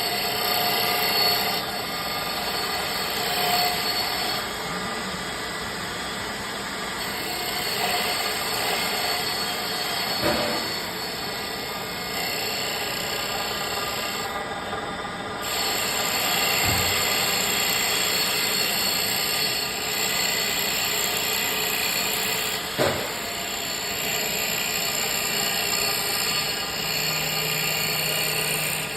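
Automatic mini CNC wood bead making machine running, its spindle and cutter making a steady whining power-tool noise as they cut wood, with a sharp click twice.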